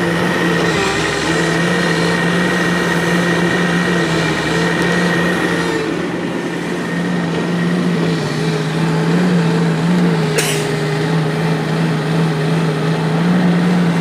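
Crawler excavator's diesel engine running steadily, with an even hum. A brief sharp click about ten and a half seconds in.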